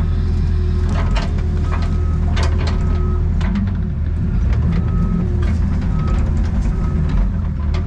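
Excavator working: its diesel engine runs steadily with a heavy low drone, while sharp clanks and knocks come every second or so, along with several brief high squeals.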